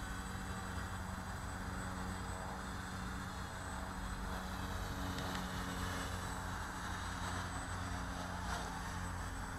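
Brushless motors and 7035 propellers of an F330 quadcopter running steadily in flight: an even hum with a hiss of rushing air.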